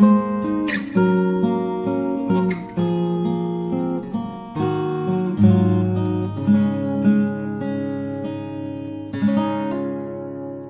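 Morris W40 acoustic guitar playing a passage of picked notes and strummed chords, each with a sharp attack. The final chord, about nine seconds in, is left to ring and fades out.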